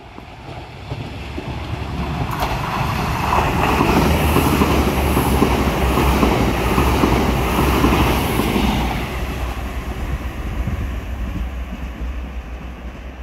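Blue-and-silver diesel multiple unit passing at speed, with running noise and wheels on the rails. It grows louder as it approaches, is loudest in the middle as it goes by, then fades as it draws away.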